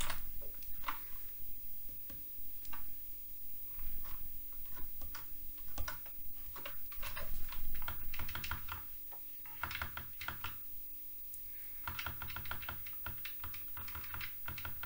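Keys being pressed on a Commodore Plus/4 computer keyboard: irregular clicks, a few scattered at first, then quick runs of keystrokes about 7 seconds in and again from about 12 seconds on.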